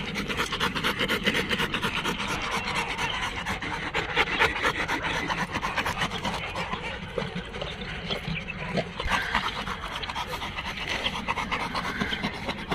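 Dog panting rapidly and steadily, a fast run of short raspy breaths.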